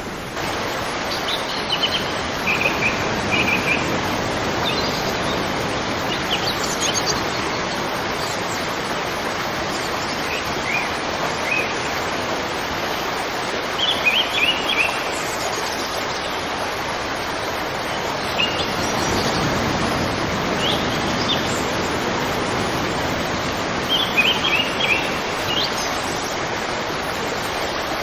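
Steady rush of flowing river water, with small birds chirping in short clusters of high notes every few seconds.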